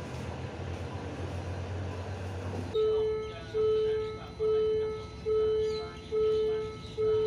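Railway level-crossing warning bell starting about three seconds in, sounding a single-pitched ding about once every 0.85 s, each stroke fading before the next; it signals an approaching train. Before it, a steady low hum; birds chirp faintly behind the bell.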